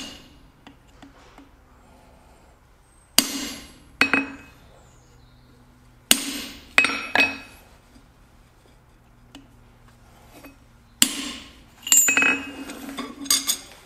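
Ball-peen hammer striking a squared-off hand chisel set on hot steel over an anvil, cutting growth lines into forged horns. Separate ringing metal blows with pauses between, coming faster near the end.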